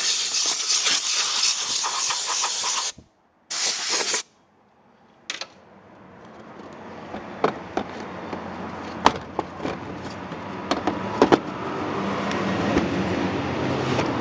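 Compressed-air blow gun hissing as it blows dust out of the engine air filter. It cuts off after about three seconds, gives one more short burst and stops. Then a low hum slowly grows, with scattered clicks and taps as the filter is handled.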